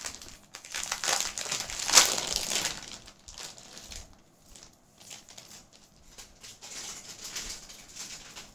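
Plastic packaging crinkling and rustling as it is handled, loudest about two seconds in, then softer intermittent crinkles.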